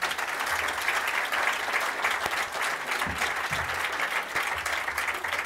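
A large seated audience applauding: dense, sustained clapping.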